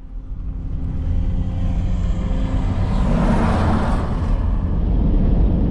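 A vehicle's engine and road noise as it pulls away and gathers speed: a steady low rumble with a rush of tyre and wind noise that swells from about a second in.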